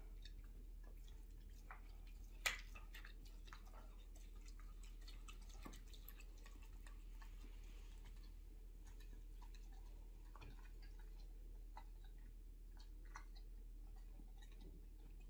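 Great Pyrenees dog gnawing a raw lamb rib: faint, irregular wet chewing and small clicks of teeth on bone, with one sharper crack about two and a half seconds in.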